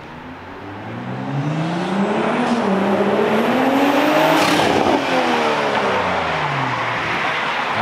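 BMW M340i's 3.0-litre turbocharged straight-six, exhaust straight-piped with the muffler deleted, accelerating past. The engine note climbs in pitch and is loudest as the car passes about four to five seconds in, then drops in pitch as it pulls away.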